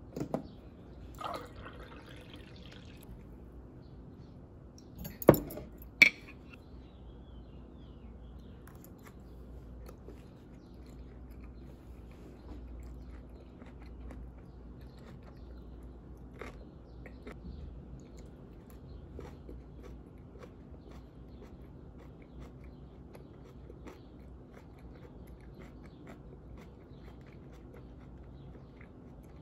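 Quiet chewing and crunching of a meal eaten with metal chopsticks, with faint small clicks throughout. Water is poured from a pitcher into a glass near the start, and two sharp knocks come about five and six seconds in.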